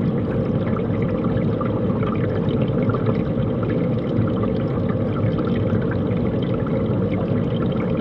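Steady, even rush of running water, deep in tone, with no breaks or changes.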